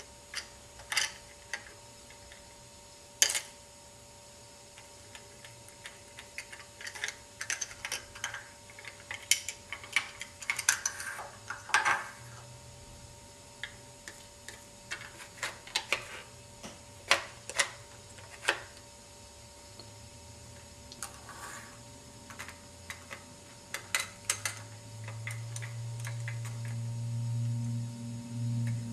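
Lego plastic parts clicking and tapping as a model garbage truck's cart tipper is worked by hand and small toy bins are picked up and set down, in irregular sharp clicks. A low hum comes in near the end.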